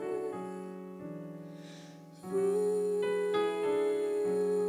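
Yamaha S90 ES stage keyboard playing sustained piano chords that fade away over the first two seconds, then a new chord comes in sharply with a held high note above it.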